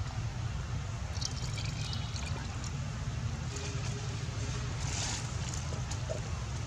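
Steady low outdoor rumble with faint, scattered rustles and ticks over it.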